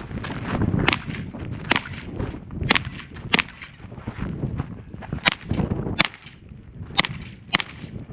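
Pistol fired eight times at a steady, unhurried pace during a timed defensive-pistol stage, about one shot every second; each shot is a sharp crack, the first about a second in and the last near the end.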